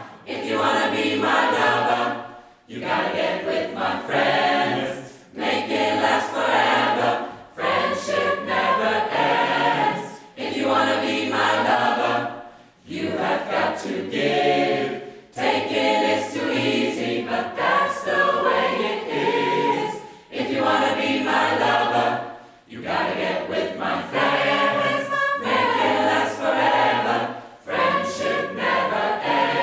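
Choir singing in short phrases of two to three seconds, each broken off by a brief pause.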